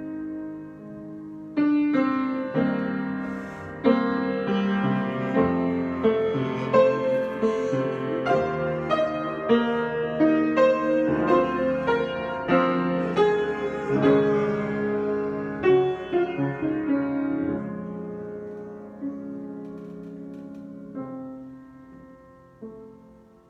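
Improvised piano music: chords and melody notes come in fuller about two seconds in, stay busy through the middle, then thin out and fade away toward the end.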